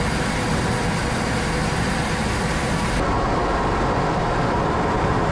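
Steady, loud engine-like roar with no clear pitch, changing abruptly about three seconds in.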